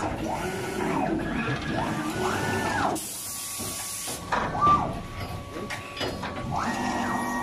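Automatic clothing folding and packaging machine running: its motors whine up, hold and wind down in repeated cycles over a steady thin tone. About three seconds in there is a second-long hiss, and soon after a short, louder sound.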